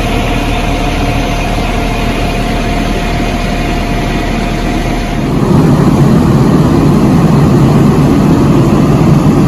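A heavy vehicle engine idling steadily, growing louder and fuller about five seconds in.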